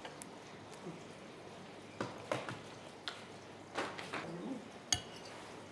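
Several light, scattered knocks and clicks, with a brief faint voice-like sound about four seconds in.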